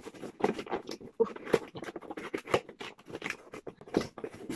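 Cardboard mailer box being handled and opened: a run of scrapes, rustles and sharp clicks from the flaps and edges.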